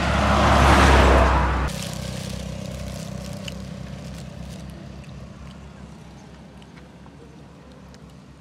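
A flatbed truck passing close by on the road, its noise swelling for about a second and then cut off abruptly. A fainter steady low rumble follows and slowly dies away.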